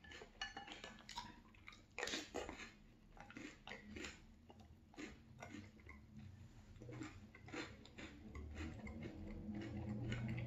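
A person chewing a mouthful of crunchy French Toast Crunch cereal in milk: irregular crisp crunches, several a second, loudest about two seconds in.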